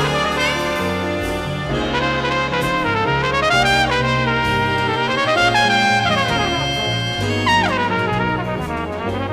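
Flugelhorn solo in a jazz big band, played in quick runs that sweep up and down, over the band's accompaniment and a low bass line.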